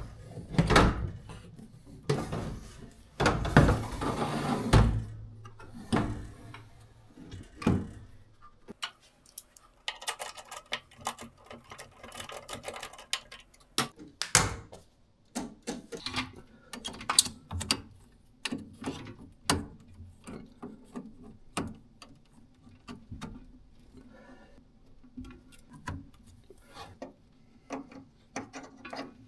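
Doremi ShowVault server and rack hardware being handled: heavy knocks and scrapes as the unit is pushed into the rack for the first several seconds, a short rasping stretch around ten seconds in, then many short clicks and taps as it is fastened and its power cables are plugged in.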